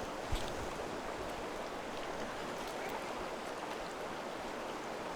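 Steady rush of flowing stream water, with one soft low thump about a third of a second in.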